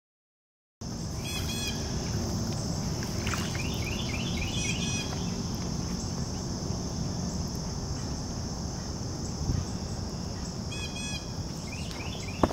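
Outdoor ambience starting about a second in: a steady high drone of insects with a few short bursts of bird chirps, over a low background rumble.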